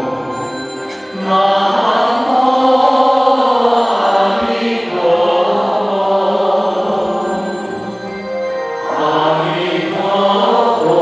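Slow Buddhist chanting sung in long, drawn-out phrases with music. The phrases break briefly about a second in and again near the end.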